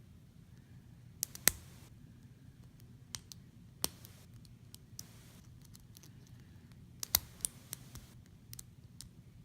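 Scattered metallic clicks of a lock pick and tension tool working the pin stack of a BEST padlock during single-pin picking, irregular and sharp, the loudest about a second and a half in and again about seven seconds in, over a faint steady hum.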